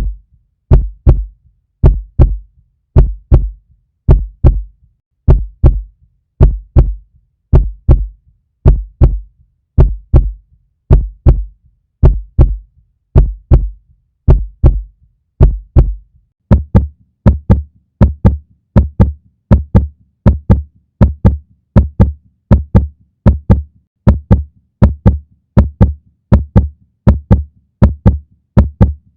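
Heartbeat: paired low thumps (lub-dub) about once a second, quickening to a faster beat about halfway through, with a low hum beneath from then on.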